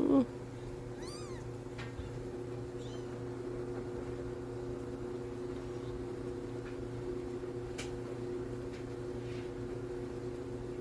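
Two-week-old kitten giving one short, loud mew right at the start, then a few faint high squeaks over a steady low hum.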